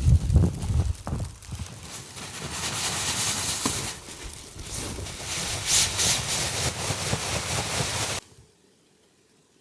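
Footsteps crunching through snow in an uneven rhythm, with gusts of wind on the microphone early on; the sound cuts off abruptly to silence about eight seconds in.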